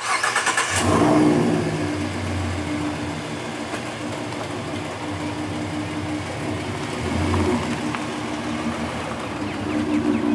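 Ford Mustang's 3.7-litre V6 cranking and starting, catching with a short rev about a second in, then settling into a steady idle.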